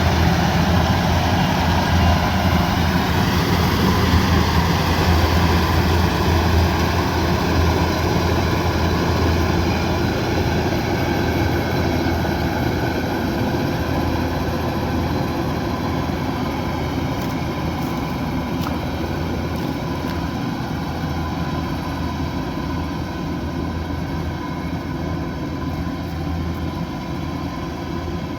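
Kubota DC108X combine harvester's diesel engine running steadily with a deep hum, growing slowly quieter over the stretch.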